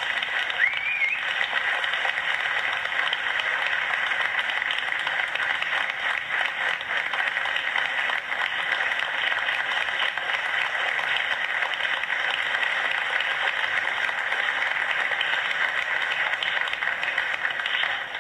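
Audience applauding steadily, heard as played back through laptop speakers, with one short rising call from the crowd near the start.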